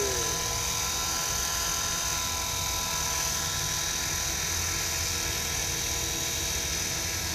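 Align T-Rex 450 Pro electric RC helicopter hovering low: the steady high-pitched whine of its electric motor and drivetrain over the rotor's rushing noise.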